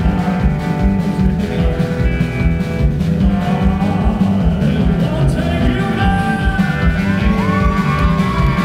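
A live country-rock band playing, with a steady drum beat and guitars. In the second half a high melody line bends and glides in pitch.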